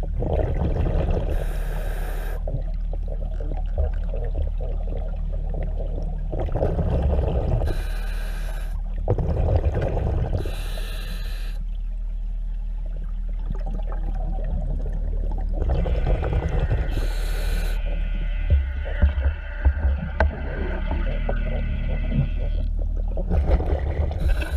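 A diver breathing underwater through a diving regulator: a short hissing inhalation every few seconds, followed by rumbling, bubbling exhalations, over a steady low hum.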